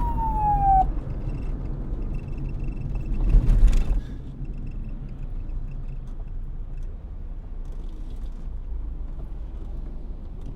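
Police siren wail ending on a falling sweep in the first second, leaving a steady low rumble. About three and a half seconds in, a rushing swell of noise rises and then drops off suddenly, and a faint thin high tone hangs on for several seconds.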